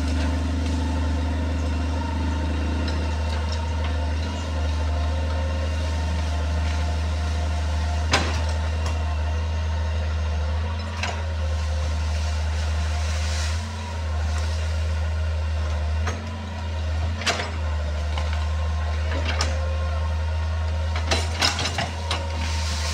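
Hitachi hydraulic excavator's diesel engine running steadily under load, with a handful of sharp knocks and cracks spread through, as the bucket works through brush and tree roots.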